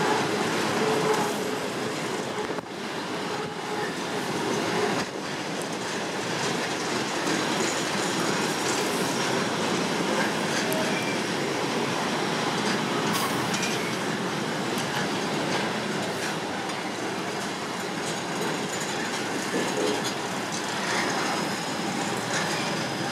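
Loaded freight wagons of a steel train rolling past at close range: a steady rolling noise with occasional knocks from the wheels, and a faint high wheel squeal near the end.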